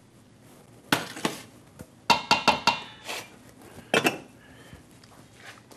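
A wooden spoon knocking and scraping against a stainless steel mixing bowl and a saucepan as cooked rice is scooped out, with pot clatter. Separate sharp knocks, with a quick run of clinks and a brief metallic ring about two seconds in.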